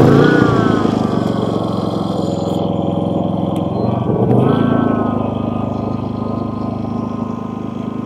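Predator 5000 inverter generator's engine running just after being restarted on fresh gasoline, having run out of fuel. Its speed surges up near the start and again about four seconds in, then settles to a steady run.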